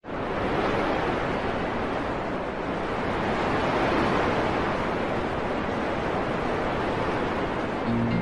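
A steady rushing noise, like stormy wind or surf, swelling and easing slowly. Music with sustained tones comes in near the end.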